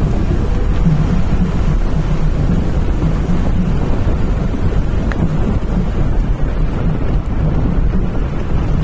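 Wind buffeting the microphone of a moving vehicle as a steady loud rumble, with a low steady hum running underneath.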